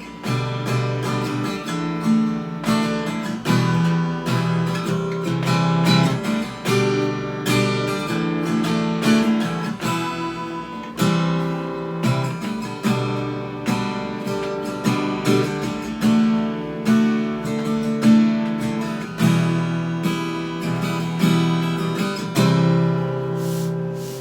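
D&D Django Jr. mahogany acoustic guitar strummed unplugged, cycling through the G, D, E minor, C chord progression.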